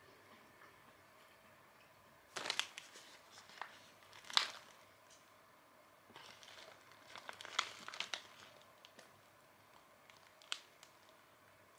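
A plastic snack bag crinkling as it is handled, in several short bursts of crackling, the loudest about four and a half seconds in and again around eight seconds.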